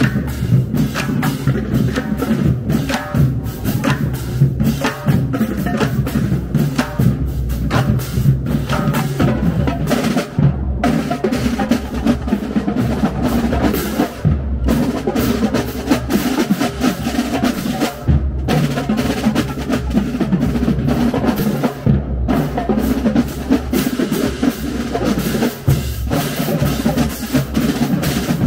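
Marching band drumline playing a fast, dense cadence on snare and tenor drums while marching, with short breaks about every four seconds in the middle.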